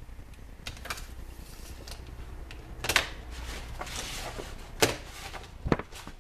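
A large sheet of paper being lifted and handled, rustling, with a few sharp clicks and knocks; the loudest come about three seconds in and just before five seconds.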